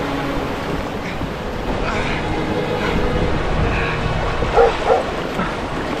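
A dog barks twice, close together, near the end, over the steady rush of whitewater rapids.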